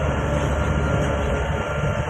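Heavy earthmoving machinery's diesel engine running steadily under load, a low, even drone.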